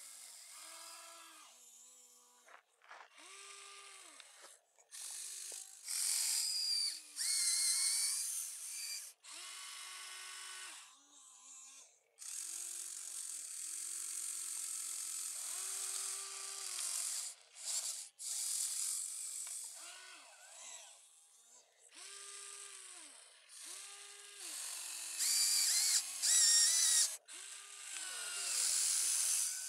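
Huina 1593 RC excavator's small electric gear motors whining in short spurts as the boom, arm, bucket and swing move, the pitch jumping from one steady tone to another each time a different motion starts and stops.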